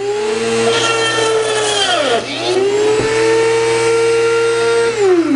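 Benchtop drill press running at speed while it drills a hole through an aluminium heat sink and diecast aluminium box. Its motor whine dips sharply in pitch about two seconds in and recovers, then winds down near the end as the press is switched off.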